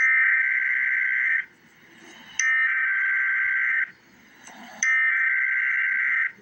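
Emergency Alert System SAME header: three bursts of rapid two-tone digital data screech, each about a second and a half long with about a second's pause between. The bursts encode a Winter Weather Advisory alert.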